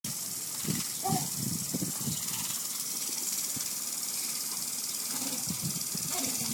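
Lawn sprinkler spraying water: a steady hiss. A few short low sounds come through it around one to two seconds in and again near the end.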